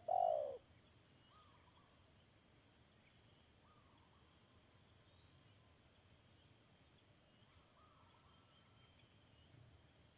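A spotted dove gives a loud, falling coo right at the start, then fainter coos follow every few seconds, over steady high insect trilling.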